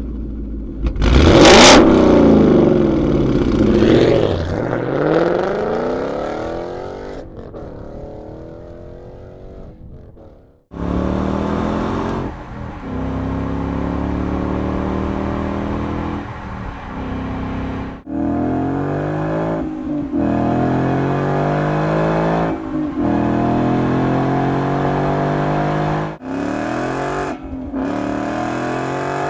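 Ford Mustang GT's 5.0-litre V8 heard through several exhaust systems, stock and Borla. First a loud pass-by whose pitch bends as the car goes past, fading away over several seconds. From about eleven seconds come hard accelerations, the engine note climbing and breaking off at each gear change.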